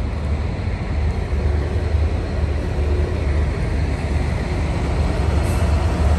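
Freight train of tank wagons passing close by, a loud steady deep rumble with the clatter of wheels on rail, a diesel locomotive going by near the end.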